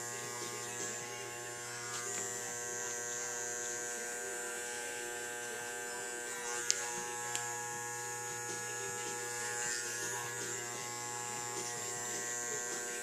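Andis Master magnetic-motor hair clippers buzzing steadily while cutting close along the back of the neck, blending out a taper line. Two short clicks about seven seconds in.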